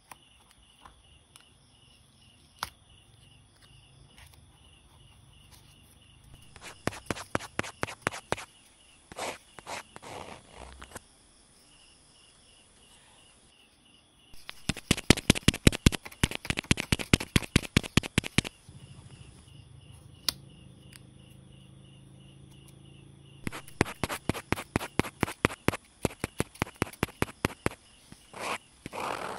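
Fast chopping taps of a knife on a cutting board, about eight strikes a second, in three runs of a few seconds each.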